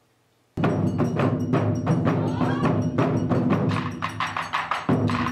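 Taiko drum ensemble playing a fast, driving rhythm of drum strikes, coming in suddenly about half a second in.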